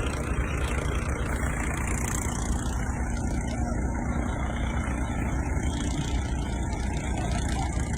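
Heavy vehicle engine running steadily with a low, even rumble.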